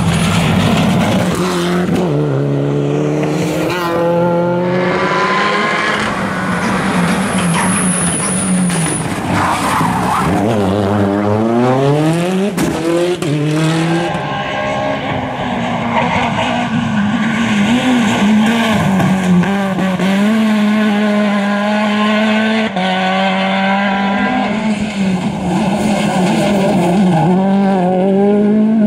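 Rally cars driven flat out on special stages, one after another: turbocharged engines revving hard and climbing through the gears, then dropping sharply in pitch on the downshifts.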